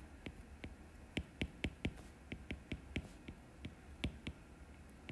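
Stylus tip tapping and clicking on a tablet's glass screen during handwriting: a quick, uneven run of sharp taps, about three a second.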